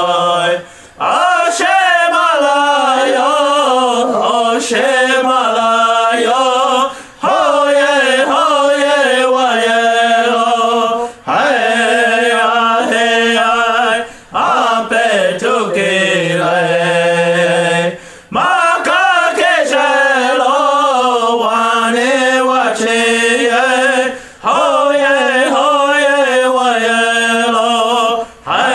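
Voice singing a Lakota/Dakota prayer song: a chanted melody of held, wavering notes in phrases of a few seconds, each broken by a short pause for breath.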